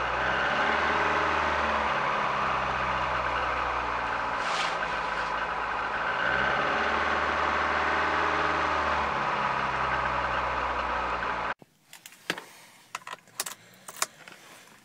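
Car engine running by itself at a fast cold-start idle of about 2,000 rpm at −34 °C, with no throttle applied, heard from inside the cabin. It cuts off abruptly about eleven and a half seconds in, and a few sharp clicks and knocks follow.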